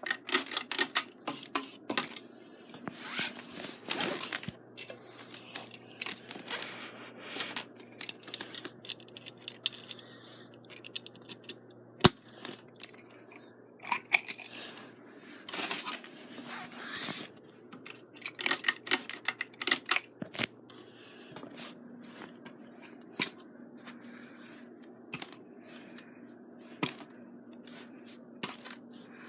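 Ceiling fan's motor humming steadily, under many irregular clicks and rattles that come thickly at first and thin out after about twenty seconds. One sharp click stands out near the middle.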